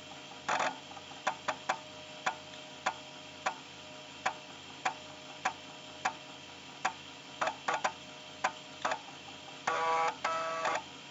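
A 1990s PC's old IDE hard drive and fans running with a steady hum and whine, the drive heads clicking about every half second or so. Near the end come two short buzzy grinding tones, like a drive seeking.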